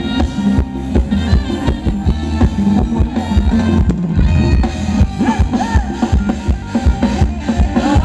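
Live band playing Thai ramwong dance music: a steady drum-kit beat of bass drum and snare over heavy bass, with melody instruments above.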